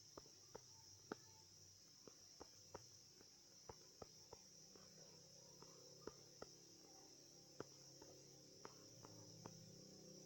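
Near silence: faint clicks at irregular intervals, about sixteen in all, over a steady high hiss.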